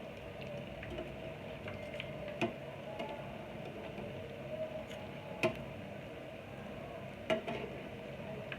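Green banana kababs sizzling as they fry in oil, with a steady hiss and three sharp taps or clicks spread through it.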